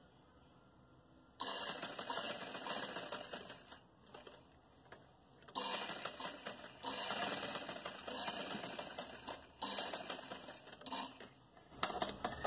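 Sewing machine stitching in three runs with short stops between, hemming the single-folded edges of a fabric strip for a zip. A few sharp clicks near the end.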